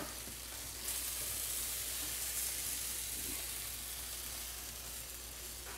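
Lemon and vegetable slices sizzling steadily on a hot griddle, the hiss swelling slightly about a second in.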